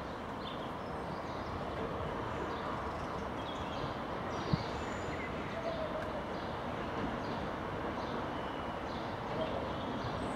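Class 66 diesel-electric locomotive approaching slowly, its two-stroke EMD V12 engine running steadily. A single sharp knock comes about four and a half seconds in, with birds chirping.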